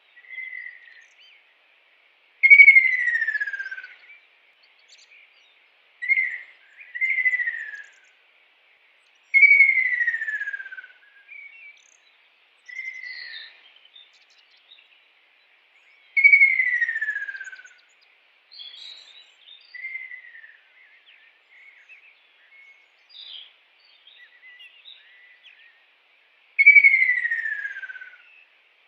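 A kingfisher calling: loud, long whistled notes that slide down in pitch, each lasting about a second and a half, four of them spaced several seconds apart, with shorter, quieter notes in between. A faint steady insect buzz runs underneath.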